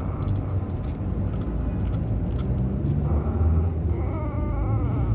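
Five-week-old kitten eating with small clicking sounds, then giving a drawn-out, wavering cry about three seconds in, over a steady low rumble.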